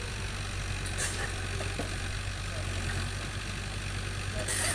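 Excavator's heavy diesel engine idling steadily, with two short hisses, one about a second in and one near the end.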